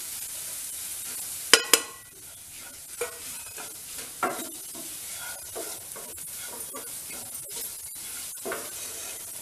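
Chopped onion and tomato sizzling in an oiled nonstick frying pan while a spatula stirs and scrapes through them in repeated strokes. About one and a half seconds in come two sharp, ringing metallic clinks close together.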